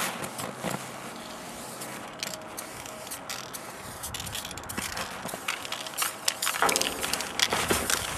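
Aerosol spray-paint can hissing in short bursts as a graffiti piece is painted, mixed with crunching and scraping sounds that are loudest near the end.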